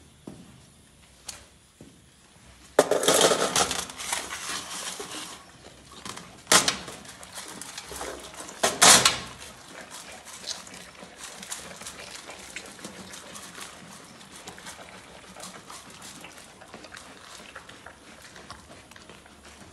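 Capybaras feeding at a steel tray of pellets and hay. There are a few loud rustling, clattering bursts in the first half, then a steady patter of small crunches as they chew.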